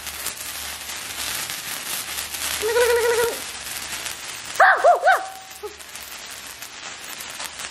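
Handheld sparklers fizzing and crackling with a dense spray of tiny pops, thinning out after the first few seconds. Over it come a held, pitched call about three seconds in and a few short, high cries a little before five seconds.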